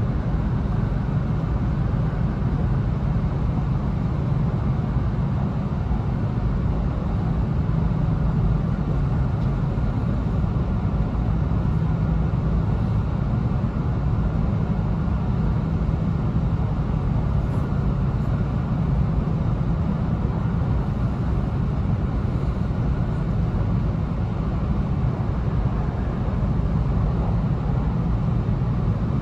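Steady running noise of an E2-series Shinkansen heard inside the passenger car: an even low rumble from the wheels and track with a lighter hiss above it, unchanging throughout.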